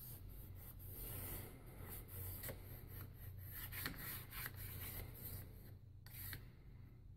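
A stick of chalk rubbed flat-side back and forth over a freshly sprayed chalkboard-paint surface in repeated scratchy strokes. This is the chalk seasoning of a new chalkboard, done before the first wipe-off.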